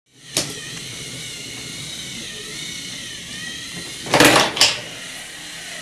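Small electric motor of a battery-powered toy train whining steadily as it runs along wooden track, its pitch wavering a little. Two short, loud noisy bursts come just after four seconds in.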